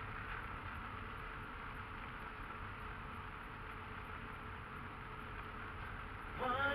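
Steady rumble of a car driving on an unpaved gravel road, tyre and road noise heard inside the cabin. Music with singing starts near the end.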